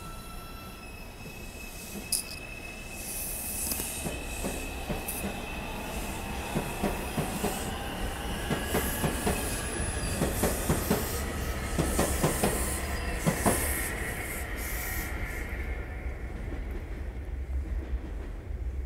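R142 subway train running past on the far track, its wheels squealing in steady high tones and clicking over rail joints. The clicking comes thick and loud through the middle, then eases off near the end.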